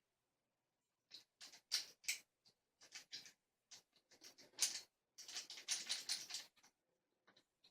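A homemade rake scraping and clicking over the pin tumblers of a Master Lock 570 dead-core padlock, with a tension wrench in the keyway. Irregular small clicks and short scratchy strokes, with a quick run of raking strokes about five seconds in.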